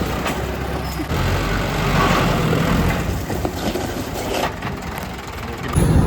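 A vehicle engine running steadily, with a noisy haze over it and a change in the sound about a second in.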